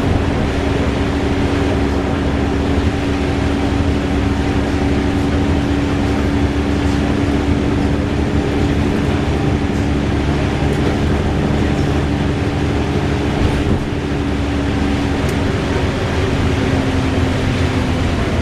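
VDL DB300 double-decker bus running steadily under way, its engine drone carrying a loud, even whirring tone.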